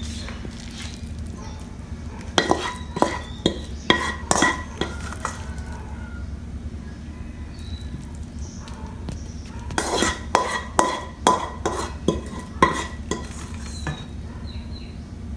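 Plastic spatula scooping noodles out of a wok and tapping against the wok and ceramic bowls: two runs of sharp, lightly ringing clinks, one starting about two seconds in and another around ten seconds, over a steady low hum.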